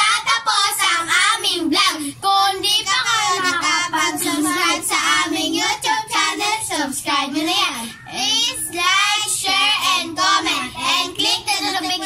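Several children singing loudly together.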